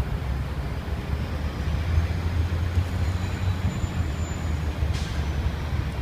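Steady low rumble of city road traffic, with a large vehicle such as a bus or truck passing. A faint high whine rises slowly and falls away about five seconds in.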